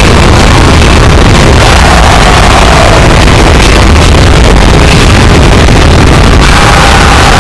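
Harsh noise music: a dense, heavily distorted wall of static with a heavy low rumble, steady and flat-out loud. A faint wavering tone drifts through it in the middle and again near the end.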